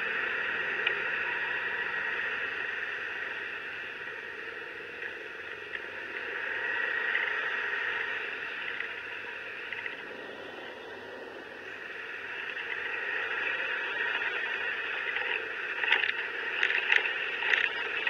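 Riding noise from a motor scooter on the move: a steady rush of wind and road noise that swells and eases with speed. Near the end, a quick run of sharp knocks and rattles as the scooter bumps over the railway crossing's rails.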